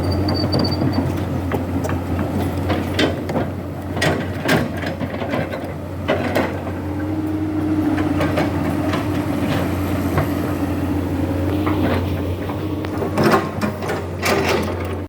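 Komatsu PC200 excavator's diesel engine running steadily with a low hum. A few sharp knocks and clanks come through at intervals, the loudest near the end.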